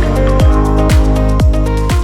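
Electronic dance music with a steady kick-drum beat, about two beats a second, under held synth notes.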